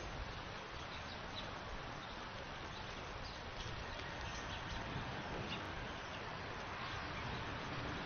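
Steady outdoor background hiss picked up by a feeder camera's microphone, with a few faint, short, high chirps now and then.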